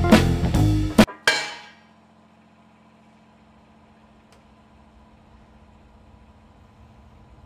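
Plucked blues guitar music with drums that stops about a second in, one final struck note ringing out and fading, followed by the faint steady hum of a hydraulic press running.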